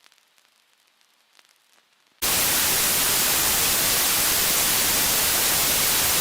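Faint scattered crackles, then about two seconds in a sudden switch to loud, steady white-noise static that holds unchanged.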